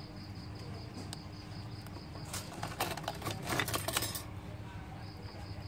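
Fingers handling an opened smartphone, pressing its flex-cable connectors: a second or two of small clicks and rustles partway through. Underneath, a steady low hum and a faint, rapidly pulsing high chirp.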